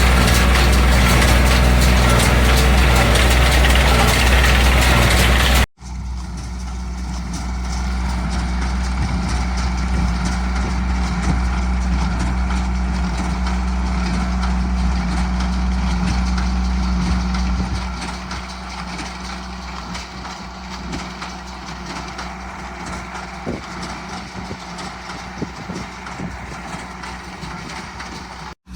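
LS232 compact tractor's diesel engine running steadily while baling, with a steady low hum. The sound breaks off sharply twice, about six seconds in and just before the end, and is quieter after about eighteen seconds.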